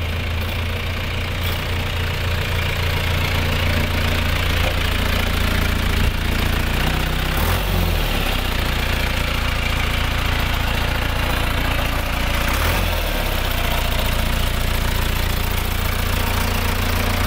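John Deere 2755 tractor's four-cylinder diesel engine running steadily at low speed, heard up close, with two brief wavers in its note partway through.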